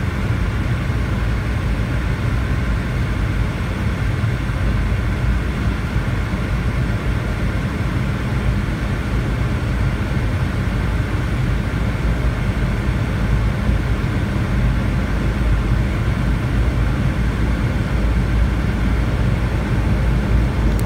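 Cabin noise of a Boeing 717-200 in its climb after takeoff: the two rear-mounted Rolls-Royce BR715 turbofans running at climb power with airflow over the fuselage, heard as a steady low rumble with a faint whine on top.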